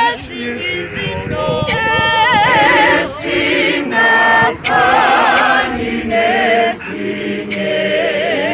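A women's choir singing an a cappella gospel praise song in isiZulu, several voices in harmony with wide vibrato. The singing comes in phrases with brief breaks between them.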